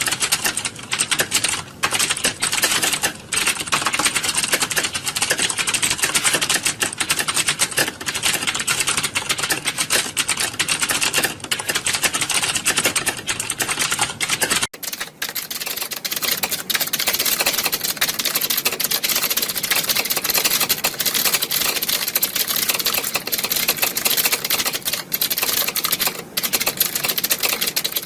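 Many computer keyboards being typed on at once, a dense, continuous clatter of overlapping key clicks. About halfway through the sound changes abruptly, with much less low rumble under the clicks.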